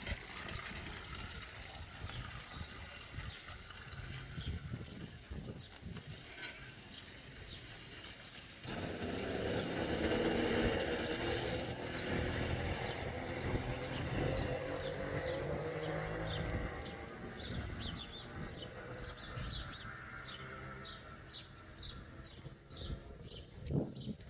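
An engine starts running abruptly about nine seconds in and runs unevenly for several seconds before fading. A bird chirps repeatedly in short high notes through the second half.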